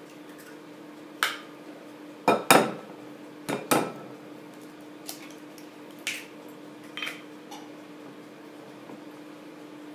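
Eggs being knocked against the rim of a glass bowl to crack them: a series of short, sharp taps. The loudest come in two quick pairs, just after two seconds in and again about three and a half seconds in, with lighter taps later, over a steady low hum.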